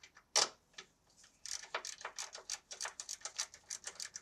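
Ratchet wrench clicking in a quick, uneven run of about six clicks a second as a 14 mm motor mount nut is turned off, after one louder click about half a second in.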